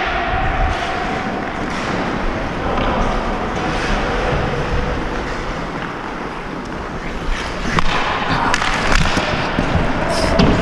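Ice hockey skates scraping and gliding on rink ice, with a few sharp knocks about eight seconds in.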